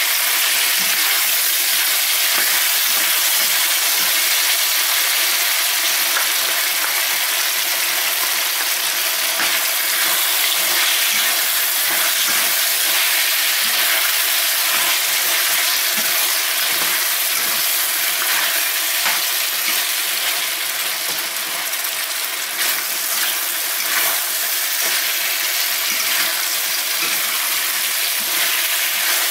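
Beef and pineapple sizzling steadily in a stainless-steel wok, with a metal spatula stirring and scraping the pan.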